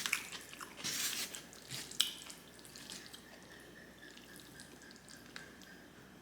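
Close-miked wet chewing and mouth sounds from eating black bean noodles: a few soft, wet clicks and smacks in the first couple of seconds, then only faint mouth sounds.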